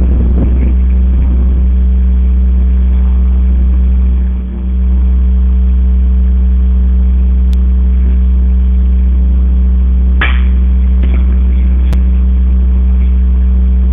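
A loud, steady low machine hum with a single sharp crack about ten seconds in.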